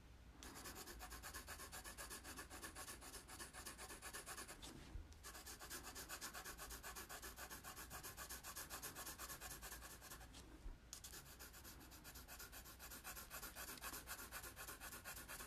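Faint pencil scratching on paper in quick, even back-and-forth shading strokes, filling in a solid black area. The strokes pause briefly twice, about five and about eleven seconds in.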